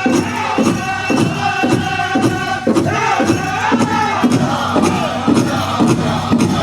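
A southern powwow drum group singing a crow hop song in chorus over a steady, evenly struck big drum.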